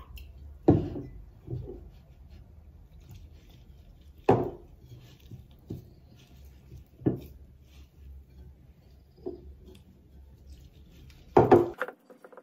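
Pizza dough being kneaded by hand in a ceramic bowl, with a dull thump every few seconds as the dough is pushed down, and a louder cluster of knocks near the end.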